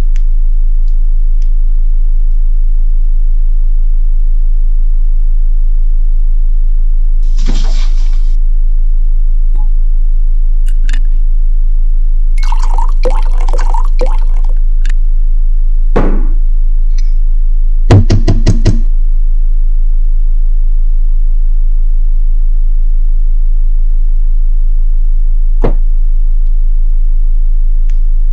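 A steady low hum throughout. About halfway, liquor is poured from a bottle into a glass, the sound rising in pitch as it fills. A few seconds later comes a rapid run of about half a dozen loud knocks, with a single thud before it and a faint click near the end.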